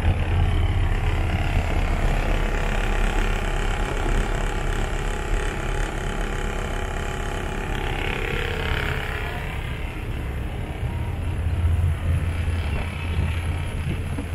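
Tour boat's engine running with a steady low drone and a constant rushing noise over it.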